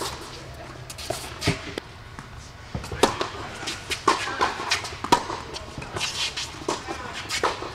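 Tennis rally on an indoor hard court: sharp pops of the ball off the rackets and its bounces on the court, about six in all, each a second or so apart.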